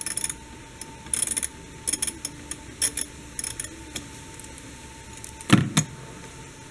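Socket ratchet clicking in short bursts as a battery pan bolt is worked with a ratchet and extension. A single louder knock comes near the end.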